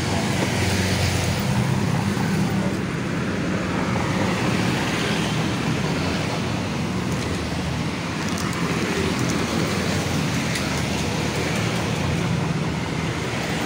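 Motorbike engine running steadily at low speed close by, with road traffic going past.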